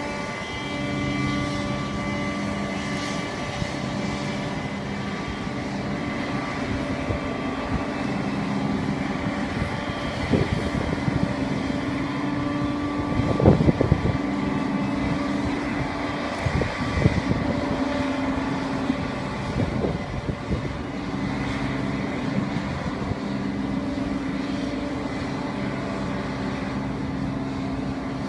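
Airbus A319 airliner and its pushback tug running during pushback: a steady mechanical hum with a few held whining tones, and a few brief low rumbles around the middle.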